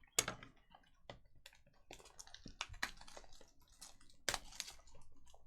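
Trading cards and packs being handled at the table: a run of irregular light clicks and taps, with a couple of sharper snaps, one just after the start and one about four seconds in.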